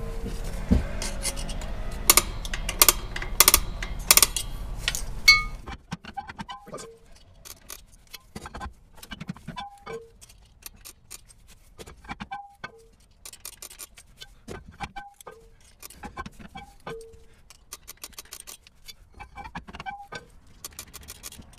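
Star-wheel adjuster of a Toyota 4Runner rear drum brake being turned tooth by tooth, each step a short metallic click with a brief ring, about once a second, as the shoes are pushed out toward the drum. Before that, a few louder metal clinks over a low hum.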